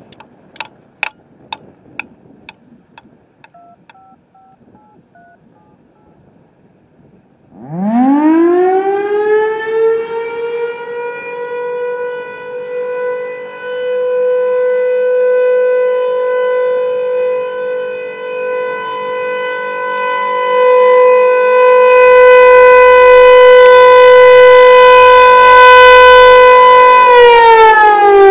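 Federal Signal Thunderbolt 1000 single-tone outdoor warning siren on a short-alert test. A few seconds in it winds up from a low growl to a steady high tone, which grows louder in swells, and near the end it begins winding down in pitch. Faint ticking at about two a second comes before it starts.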